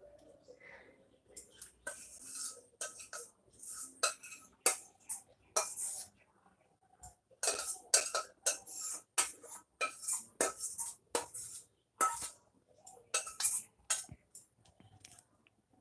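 Metal spoon scraping and knocking against a stainless steel pan while the last of a curry is served out: a rapid, uneven run of clinks and scrapes with short pauses between them.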